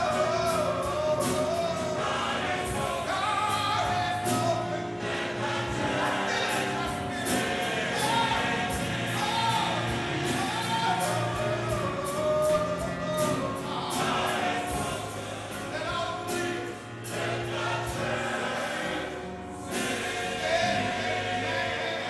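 Church choir singing a gospel song, with a steady beat running under the voices.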